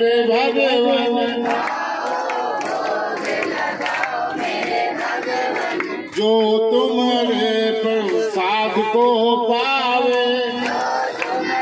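A group of voices singing a devotional chant with long held, wavering notes, broken off briefly about six seconds in and then taken up again, with scattered sharp clicks under the singing.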